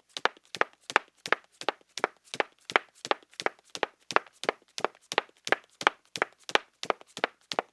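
Footsteps of solid-heeled women's shoes on a wooden floor: sharp, even heel clicks at a quick walking pace, about three a second.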